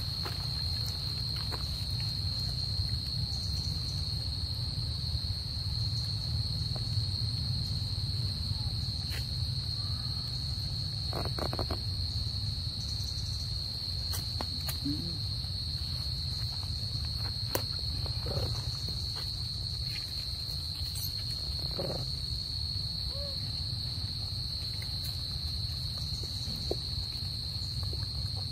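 Insects droning in one steady high-pitched note over a low steady rumble, with a few faint clicks scattered through.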